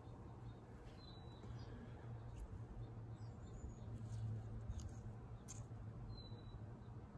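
Quiet background with a steady low hum, a few faint short bird chirps, and occasional light clicks of tweezers picking dirt out of a plastic cup.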